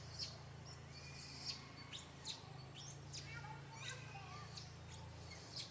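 A baby monkey squealing: about six high-pitched, arching squeals, roughly one a second, over a steady low hum.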